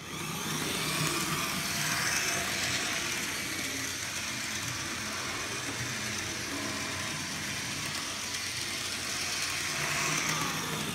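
HO scale model diesel locomotive running steadily around sectional track with a few freight cars in tow, its motor and wheels making a continuous mechanical noise. The noise swells slightly about two seconds in and again near the end.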